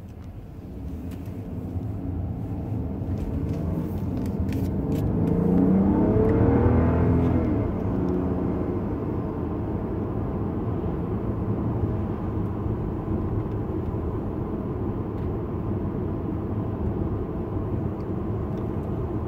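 Turbocharged car accelerating heard from inside the cabin. The engine and turbo rise in pitch and grow loudest about five to seven seconds in, then settle into steady cruising engine and road noise.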